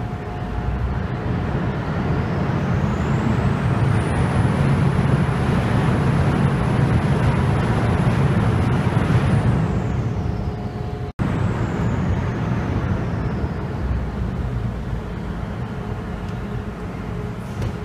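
A car ferry's diesel engines rumbling while the ferry comes into its slip to dock. The rumble swells for several seconds while a high whine climbs, holds and then falls away. The sound cuts out for an instant about eleven seconds in, then goes on as a steadier rumble.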